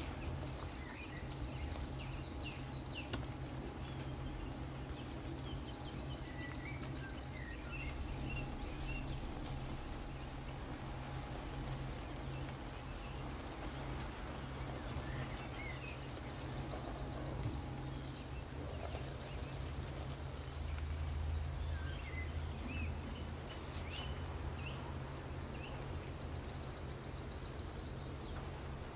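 Outdoor nature ambience: scattered bird chirps, with a short, high, rapid trill that comes back every several seconds, over a steady low hum.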